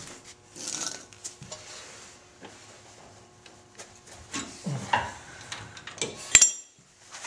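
Rustling and knocking of steel tools and parts being handled at a truck's front suspension, ending in one sharp metallic clank with a brief ring about six seconds in.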